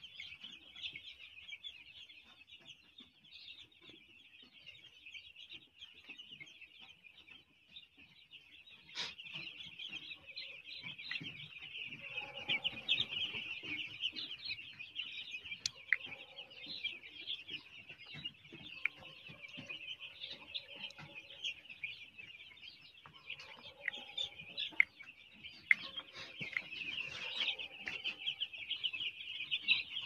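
A large flock of six-day-old poultry chicks peeping continuously, a dense high-pitched chorus of overlapping chirps.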